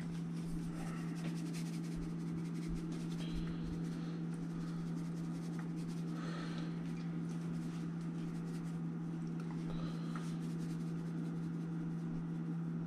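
A steady low hum, with a few faint scratchy sprinkles and rustles from a shaker can of Creole seasoning being shaken over raw fish fillets in a glass dish and hands rubbing the spice in.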